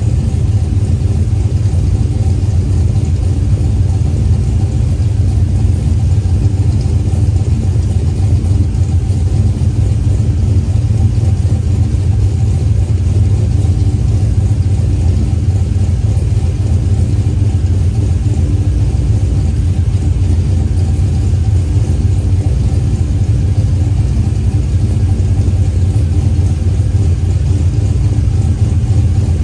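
Turbocharged LS V8, a destroked 6.0 with 4.8 internals and a 76 mm turbo, idling steadily with a deep, even rumble and no revving.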